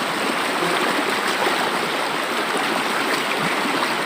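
River water flowing: a steady, even rush with no break.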